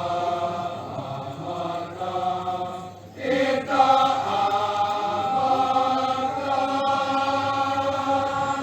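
Voices chanting together in long held notes, dropping off briefly about three seconds in and then picking up again and holding.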